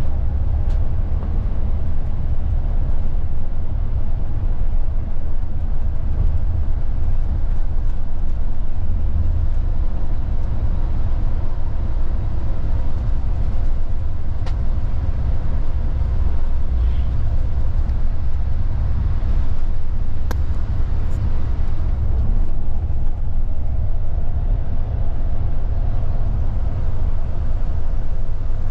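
Higer coach on the move: a steady low rumble of engine and road noise, with a couple of faint ticks near the middle.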